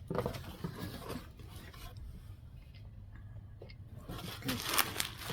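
A package being opened and handled: rubbing and scraping with scattered light clicks, busier near the end.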